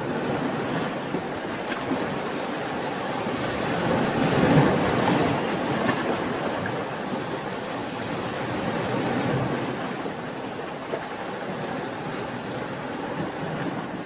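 Ocean surf: a steady rush of waves breaking and washing in, swelling to its loudest about four to five seconds in, then slowly easing.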